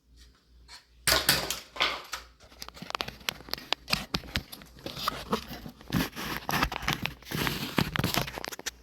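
Packaging crinkling and rustling as it is handled, with many small sharp clicks and crackles, starting about a second in.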